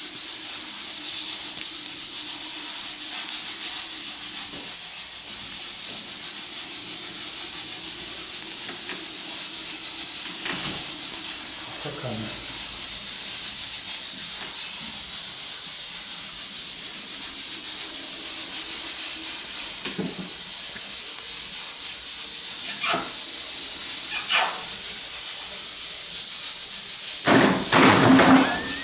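Steady background hiss with a faint low hum, broken by a few brief, soft sounds. Near the end there is a louder burst of sound, with a pitched, voice-like part, as the calico cat leaps off the ironing board.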